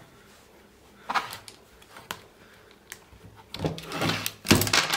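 Plastic housing of a disassembled Bluetooth speaker being handled on a wooden workbench: scattered clicks and knocks, with a louder cluster of clatter near the end.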